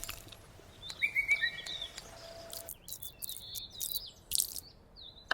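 Several birds chirping and singing in short calls, the loudest about a second in.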